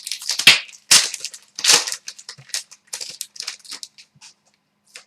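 Trading cards handled and flipped through by hand: a quick irregular run of crisp snaps and rustles, loudest in the first two seconds and thinning out after that.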